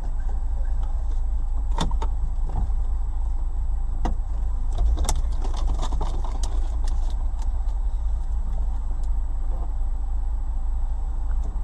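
Steady low rumble of a stopped car idling, heard from inside its cabin, with scattered clicks and knocks, most of them bunched about five to seven seconds in.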